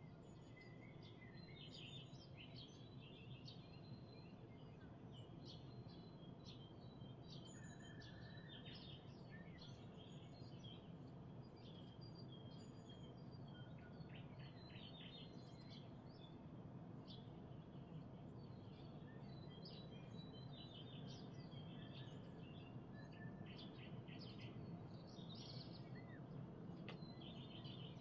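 Faint morning chorus of several songbirds singing: many short chirps and trills overlapping, over a low steady background hum.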